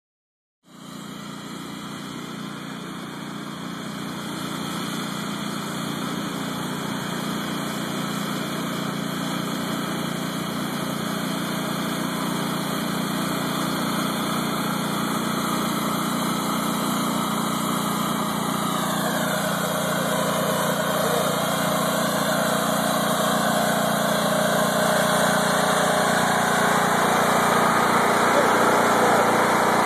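Riding lawn mower engine running steadily, growing gradually louder as the mower drives up close.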